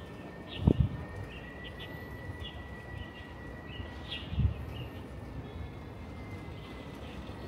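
Small birds chirping in short scattered calls over a steady background of street noise, with two dull low thumps, one about a second in and one past the middle.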